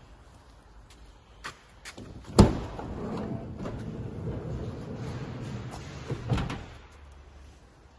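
Volkswagen Transporter's electric sliding side door opening. A few small clicks and a loud unlatching clack come first. The door then runs open steadily for about four seconds and stops with a thud as it reaches fully open.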